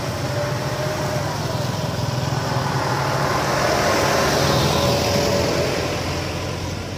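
A motor vehicle driving past on the road, its engine and tyre noise swelling to a peak about four to five seconds in, then fading.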